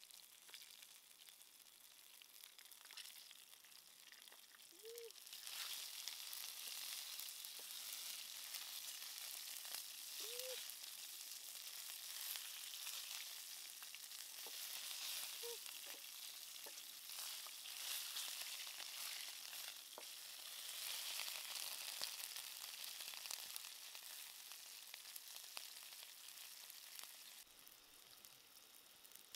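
Snake pieces frying in hot oil in a pan: a steady sizzle with scattered crackles, growing louder about five seconds in.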